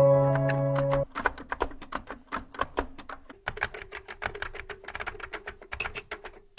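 A sustained music chord ends about a second in. A quick run of keyboard-typing clicks follows, several keystrokes a second, as a typing sound effect, with a faint steady hum under the second half.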